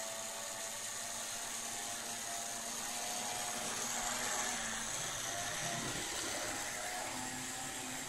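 Märklin 3077 HO-scale Schienenzeppelin model railcar running on its electric motor: a steady whir as it rolls along the track, growing a little louder about four seconds in as it passes close.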